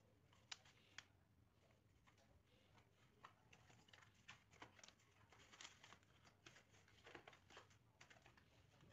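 Faint clicks and crackles of a blue corrugated sheet being bent by hand along its scored fold lines. Two sharp clicks about half a second apart come near the start, then a run of irregular crackles.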